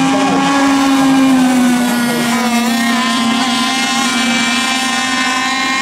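Radio-controlled racing boats' engines running flat out during a race, a steady high whine from several boats at once, with pitches wavering and shifting as the boats turn and pass.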